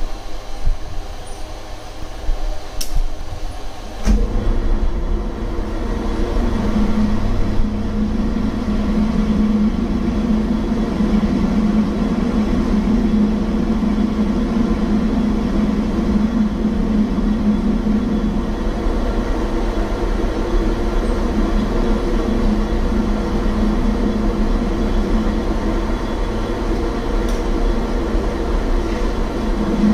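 Manual metal-turning lathe running with its chuck spinning: a steady machine hum. A few clicks are heard at first, and the hum steps up louder about four seconds in and then holds steady.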